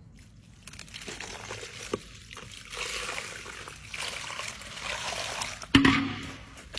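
Liquid trickling and pouring in uneven spells, with one sharp, loud knock near the end.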